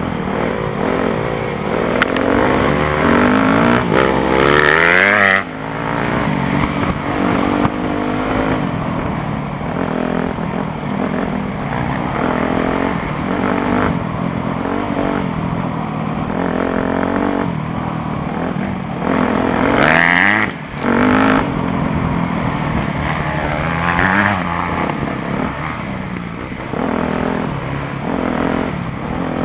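2013 Yamaha YZ250F's 250cc four-stroke single-cylinder dirt-bike engine riding a trail, revving up and easing off with the throttle, with brief throttle cuts a few seconds in and again about two-thirds of the way through. Heard from the rider's helmet.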